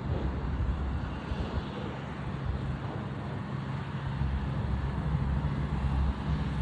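Embraer E-175 regional jet's twin turbofan engines heard on departure: a steady jet rumble with a rushing hiss over it.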